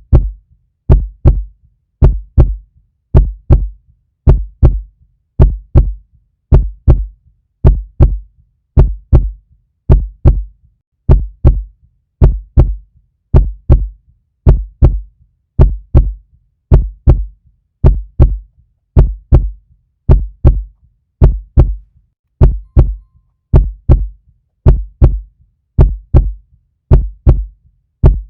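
Heartbeat, presented as a puppy's, beating steadily in an even lub-dub rhythm. Each beat is a close pair of deep thumps, about one and a half beats a second, with silence between them.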